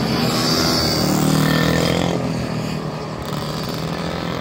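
Two mini motorcycle engines running hard as the bikes pass close through a corner, then quieter as they pull away about two seconds in.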